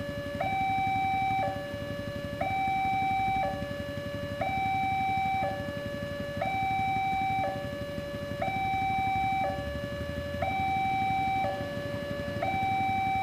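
Railway level-crossing warning alarm sounding its two-tone signal: a higher tone and a lower tone alternating, each held about a second. It sounds while the barriers are down and the lights flash, warning that a train is approaching.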